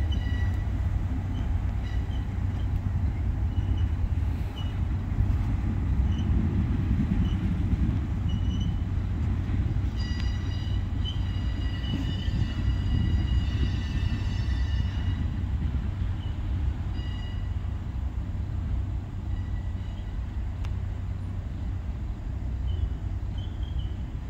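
Ballast train cars rolling past at low speed with a steady low rumble, and thin high-pitched wheel squeal from the curve, strongest about halfway through.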